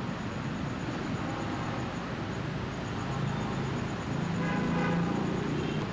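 Steady background traffic noise, with a brief pitched tone like a distant vehicle horn about four and a half seconds in.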